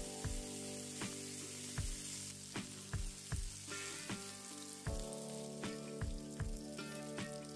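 Chicken skewers frying in olive oil on a grill pan, a steady sizzling hiss, under background music with sustained notes and a steady beat.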